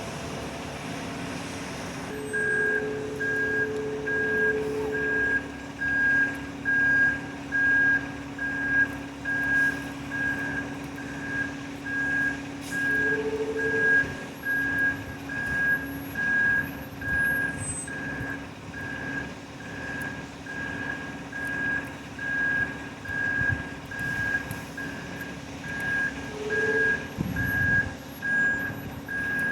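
Concrete mixer truck backing up: its reversing alarm beeps steadily, a little over once a second, from about two seconds in, over the truck's diesel engine running.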